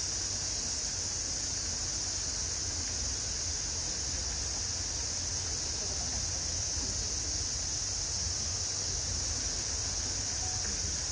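Dense chorus of summer cicadas, a continuous high hiss that holds level throughout.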